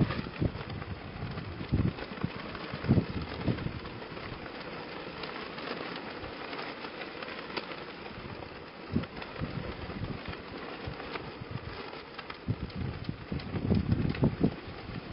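Strong gusty wind buffeting the microphone, with the cloth of carp streamers (koinobori) flapping and rattling. The gusts come as irregular low thumps and are strongest near the start and again near the end.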